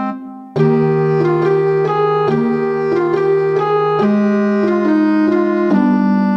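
Background music: sustained keyboard chords and a melody changing every half second or so, briefly dropping out about half a second in.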